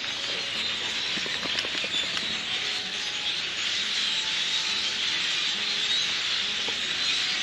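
A large flock of starlings calling all at once: a dense, continuous chatter of many overlapping squeaks and whistles.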